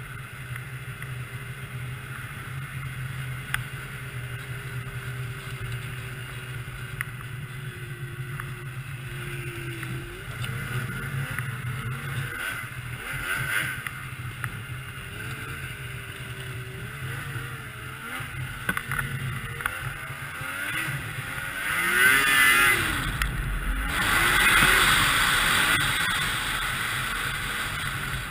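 2002 Yamaha SX Viper 700 snowmobile's three-cylinder two-stroke engine running at a steady low speed, then revving up and down from about ten seconds in, with two louder surges of acceleration near the end.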